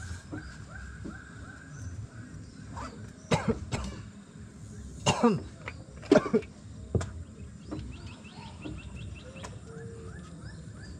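A man coughing and clearing his throat, a few loud coughs between about three and seven seconds in. Faint rapid chirping in the background.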